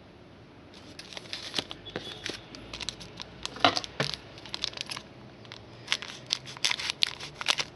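Trading-card pack wrapper being torn open and crinkled by hand: a run of irregular crackles and rips starting about a second in.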